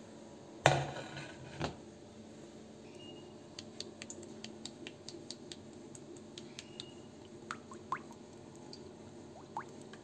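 Cooking oil heating in a pot on a glowing radiant ceramic hob: faint scattered light ticks and small crackles over a steady low hum, with a knock about half a second in and a softer one a second later.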